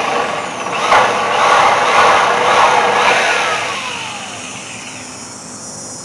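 A motor running loudly with a wavering pitch, then fading away over the last few seconds as its pitch falls.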